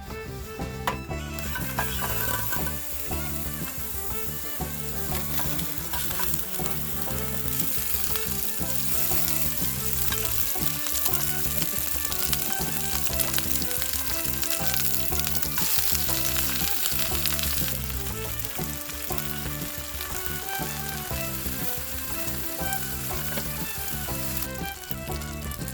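Food sizzling as it fries in a hot pan, starting about a second in and dropping away near the end, over background music.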